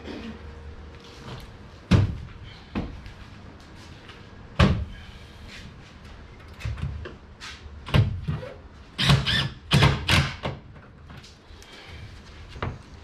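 Scattered knocks and thumps as a floor board is handled and set into a fibreglass boat hull, with a cluster of louder bangs about nine to ten seconds in.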